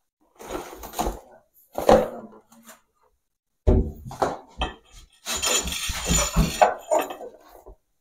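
Knocking and clattering of wooden wardrobe parts and household items being pulled and moved, in irregular bursts with short pauses, the longest and busiest in the second half.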